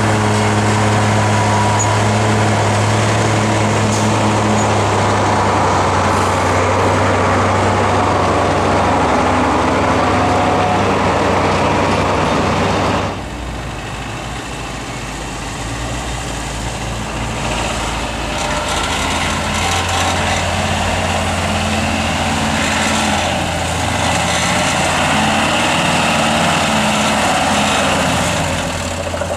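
Unimog truck engine running steadily under load on a steep off-road slope. About halfway it cuts to the quieter engine of a Unimog 411, its revs rising and falling as it drives down a dirt track.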